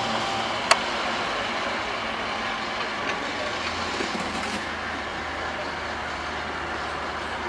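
Heavy machinery running steadily, with one sharp metallic clank about a second in and a couple of lighter knocks a few seconds later.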